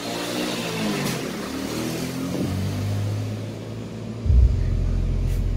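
Song playing through a sound system with a subwoofer fed by a crossover set to its 50 Hz low-frequency point. About four seconds in, a loud, deep, steady bass from the subwoofer comes in under the fainter higher-pitched music.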